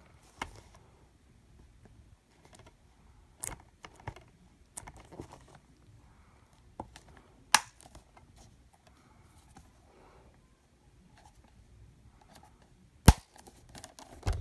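Plastic DVD case being handled and closed: a string of sharp plastic clicks and snaps at irregular intervals, with light rubbing and shuffling between them. The sharpest snap comes near the end.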